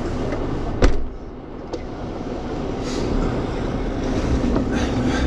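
Suzuki Jimny running, a steady low engine and vehicle rumble, with one sharp thump about a second in after which it goes briefly quieter. The rumble builds again toward the end.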